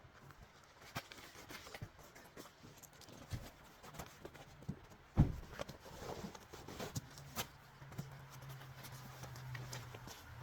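Scattered small knocks and rustles of someone pulling on fishing waders and boots, with one louder thump about five seconds in. A low steady hum comes in about seven seconds in.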